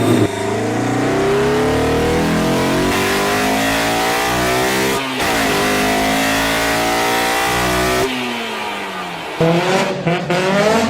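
Honda F20C 2.0-litre four-cylinder engine revving hard under acceleration. Its pitch climbs steadily, breaks briefly at a gear change about halfway, and climbs again. It then falls away as the car lifts off, and near the end it cuts abruptly to another run that starts climbing.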